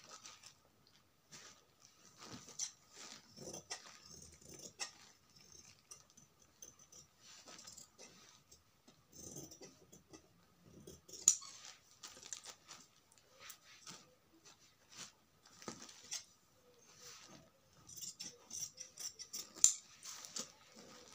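Large tailoring scissors snipping through blouse lining cloth, with the cloth rustling as it is handled: irregular soft snips and two sharper clicks, one about halfway and one near the end.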